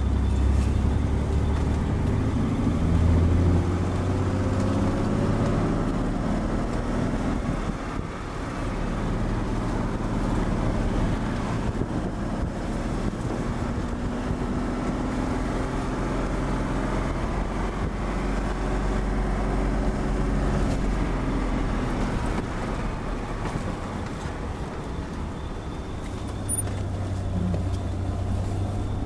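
Vehicle engine and running noise heard from inside the cabin while driving over desert sand. The engine note rises and falls as it changes speed.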